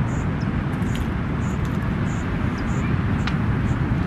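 Wind buffeting the microphone, a steady low rumble, with a faint high-pitched chirp repeating about every two-thirds of a second and a few light clicks.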